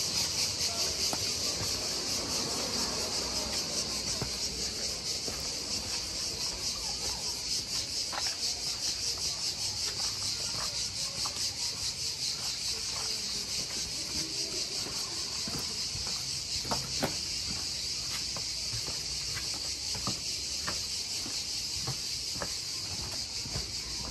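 A chorus of cicadas singing steadily in a high, finely pulsing drone, with a few light footstep taps now and then.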